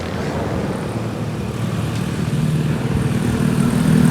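A motor vehicle's engine running steadily and growing louder toward the end.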